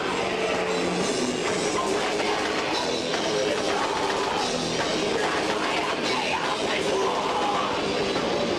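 Heavy metal band playing live: distorted electric guitars over a pounding drum kit, loud and unbroken.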